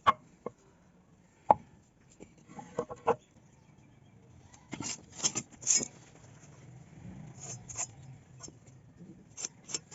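Irregular sharp taps and knocks of wood being worked by hand, single or in small clusters, with a quick run of them about five seconds in.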